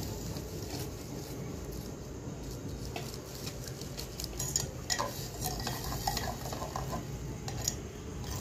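A spoon scraping and tapping the last of a thick onion-tomato paste out of its container, with scattered clicks and clinks, most of them in the second half. Underneath is the sizzle of the masala frying in the pot.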